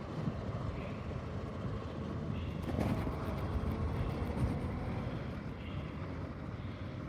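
1986 Chevrolet C60 cab-and-chassis truck's engine running steadily as the truck drives slowly away.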